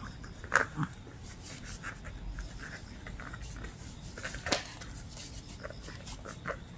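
Shih Tzu puppies playing with a bundle of cotton strings: scattered rustling and light taps, with a sharp knock shortly after the start and another about four and a half seconds in.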